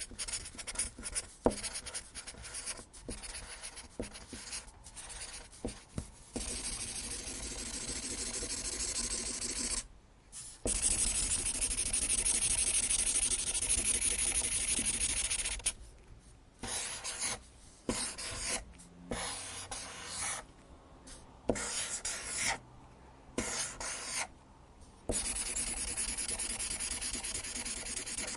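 Sharpie felt-tip marker writing and scribbling on paper. For the first six seconds or so it makes short separate strokes with a few sharp taps; then it scribbles continuously, pausing briefly about ten seconds in. The middle brings short stop-start strokes before continuous scribbling returns near the end.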